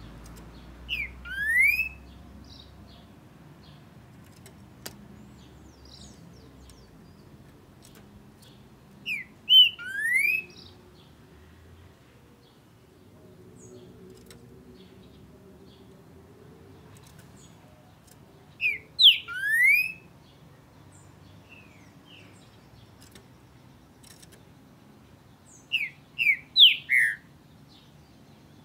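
Male green-winged saltator singing: four short whistled phrases about eight seconds apart, each a few quick notes ending in a rising slurred whistle.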